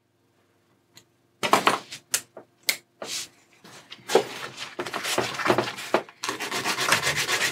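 A small piece of cut plastic sheet sanded by hand on a sheet of sandpaper, in quick back-and-forth scraping strokes that run almost without a break over the last few seconds. A few separate scrapes and knocks come first, about a second and a half in.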